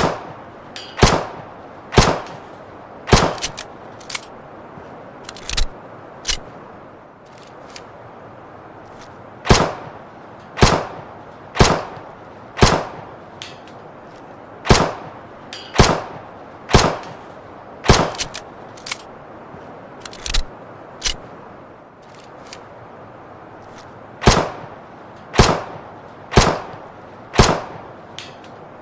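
Luger pistol firing single shots, roughly one a second, in runs broken by pauses of a couple of seconds. Each shot is a sharp crack with a short tail, and some are noticeably fainter than others.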